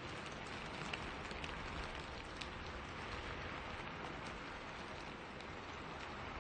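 Steady rain falling on a forest, with scattered individual drops ticking close by over a constant hiss.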